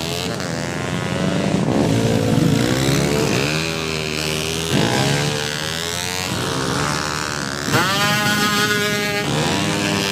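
Drag-racing motorcycles revving hard and accelerating, the engine pitch climbing in several rising sweeps one after another.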